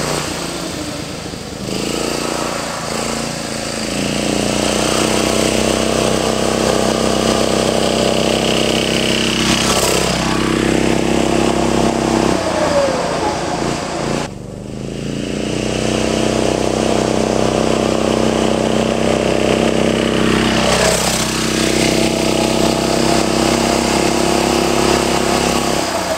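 Briggs & Stratton single-cylinder engine of a 1960 Tote Gote mini bike running steadily under way as the bike is ridden, passing close by twice.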